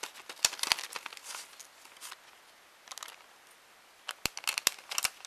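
Paper crinkling and rustling in short bursts as die-cut paper pieces are handled and worked loose, with a few sharp clicks a little after four seconds in.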